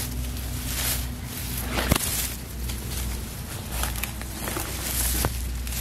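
Footsteps and rustling as someone moves through grass and dry weeds, with a sharp click about two seconds in and a steady low rumble underneath.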